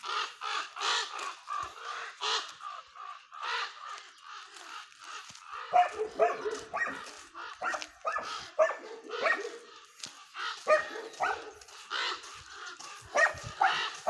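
An injured raven cawing over and over in short calls while a dog attacks it.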